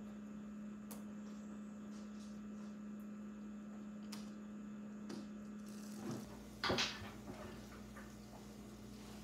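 Small metal clicks of saw chain links, rivets and tie straps being handled and fitted together by hand, with a louder clack about two-thirds of the way in, over a steady low hum.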